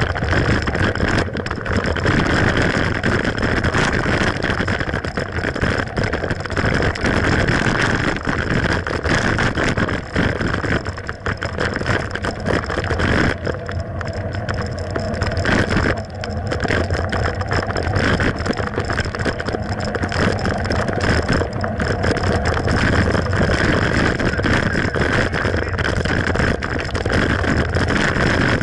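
Mountain bike riding along a trail: a steady rumbling noise of tyres and the ride, broken by frequent knocks and rattles from bumps.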